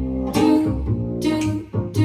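Music played back through a WiiM Vibelink amplifier and its speakers: a guitar-led song, with plucked and strummed guitar chords over bass and no singing.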